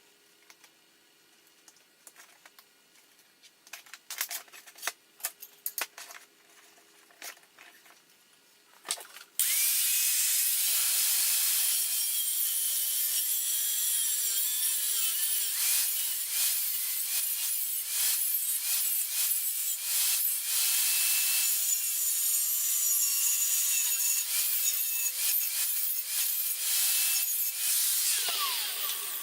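Light clicks and taps of handling for several seconds. Then a power tool starts suddenly and runs on steel for about twenty seconds, its whine wavering under load, before it switches off and spins down near the end.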